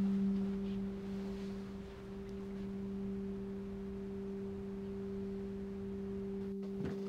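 Background music: a single low note held steadily, with a quieter tone an octave above it, as a sustained drone of the film score.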